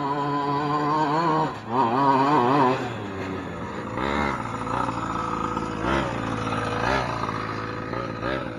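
Two-stroke gas engine of a 1/5-scale Primal RC Raminator monster truck revving as it drives. It is held high for about a second and a half, dips, gives a wavering burst of throttle, then runs lower with a few short throttle blips.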